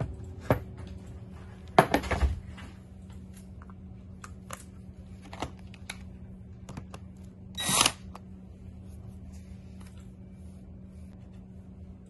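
Light knocks and clicks of a white cabinet panel being set onto a minifix connector bolt and seated against a base board, with a cluster of knocks about two seconds in and a short scrape near eight seconds, over a low steady hum.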